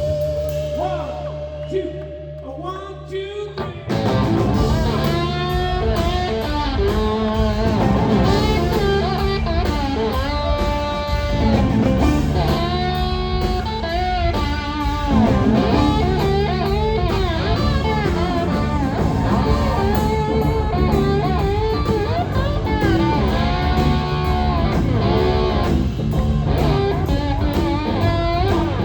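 Live blues-rock band playing, with electric guitar lines out front. It opens on a quieter, sparse guitar passage, and about four seconds in the full band comes back in loud and keeps going.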